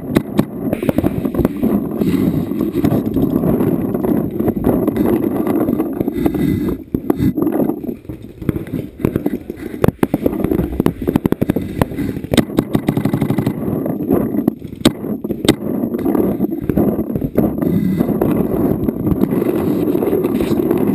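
Irregular sharp pops of paintball shots over a steady low rushing noise during a paintball game.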